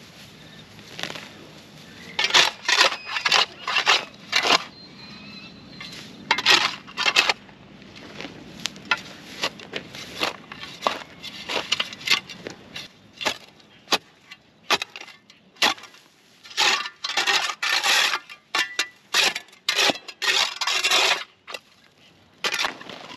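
A long-handled spade's metal blade chopping and scraping through soil and matted grass along a concrete kerb, in a run of short rasping strokes. The strokes often come several in quick succession.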